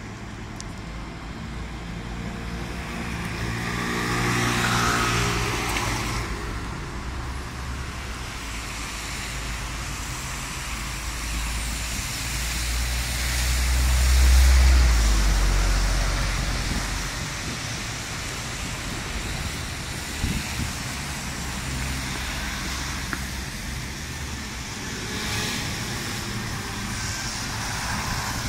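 Road traffic passing at a tram stop. An engine rises in pitch a few seconds in, and a deep diesel rumble swells to the loudest point about halfway through and fades as an articulated MAN Lion's City G bus goes by close.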